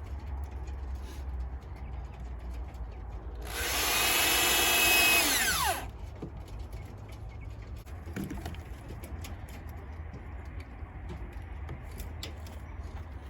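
Power drill running for about two seconds in the new wood of the hutch floor, then its motor winding down in pitch as the trigger is let go.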